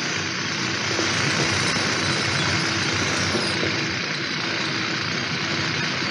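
Steady, unbroken din of quarry machinery running, at an even level throughout.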